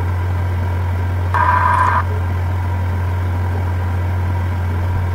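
A steady low hum, with one short higher-pitched sound about a second and a half in.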